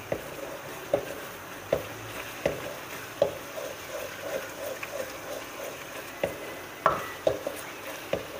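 Wooden spatula stirring and scraping blended onion paste frying in a stainless steel kadai, knocking against the pan about once a second over a low sizzle. The onion's water is cooking off as it starts to turn light brown.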